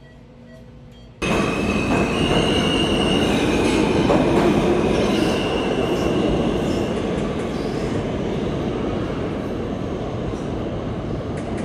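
Subway train running: a loud, dense rumble with high-pitched wheel squeals, starting suddenly about a second in.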